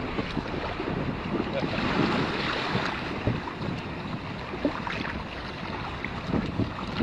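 Wind buffeting the microphone over the wash of surf, with a few faint clicks.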